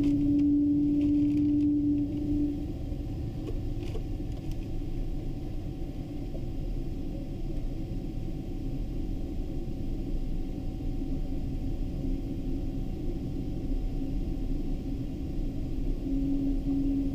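Boeing 777-200 cabin noise while taxiing: a steady low rumble of the engines at idle and the airframe rolling. A steady hum fades out about two seconds in and returns near the end.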